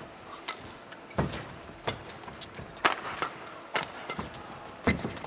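Badminton rackets striking a shuttlecock in a fast rally, about half a dozen sharp hits spaced irregularly.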